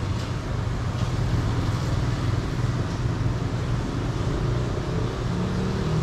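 Steady low drone of background machinery and street-market noise, even throughout, with no distinct knocks or cuts standing out.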